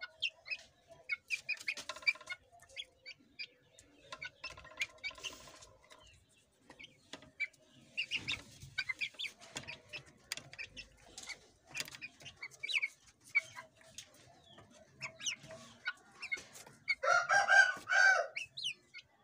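Young Aseel chickens, about four months old, peeping and clucking in short scattered calls, with one louder drawn-out call about a second and a half long near the end.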